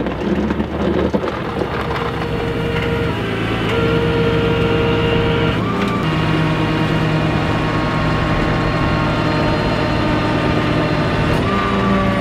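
Rollback tow truck's engine running at raised speed to drive its hydraulic winch while a plow-equipped pickup is winched up the tilted bed. The steady drone shifts pitch in steps a few times as the load changes.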